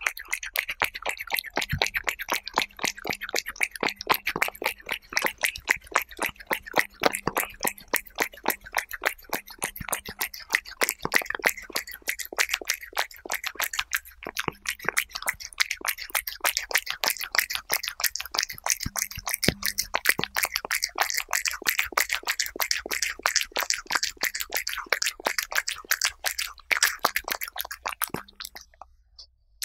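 Cat eating soft chicken-breast puree close to a microphone: a rapid, continuous run of wet licking and chewing clicks and smacks that stops near the end.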